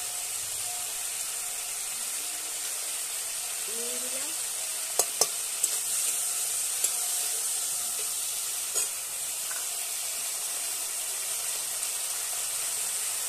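Tomatoes and green chillies sizzling in hot oil in a metal kadai, stirred with a flat metal spatula. There are a few sharp clicks of the spatula against the pan about five to seven seconds in and again near nine seconds.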